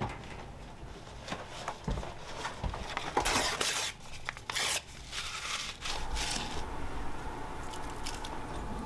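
Paper being torn and crumpled by hand while a fire is laid in a small wood stove, in irregular bursts of crinkling that are loudest about three to five seconds in.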